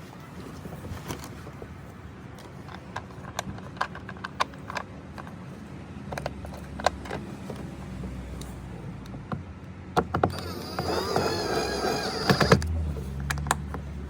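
Scattered clicks and knocks of a car door trim panel being refitted and screwed back on, over a low steady hum. About ten and a half seconds in, a louder wavering whine with many overtones runs for about two seconds.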